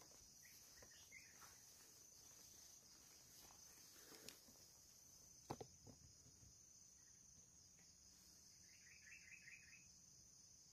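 Faint plantation ambience: a steady high drone of insects, with two soft clicks around the middle and a short, quick run of chirps near the end.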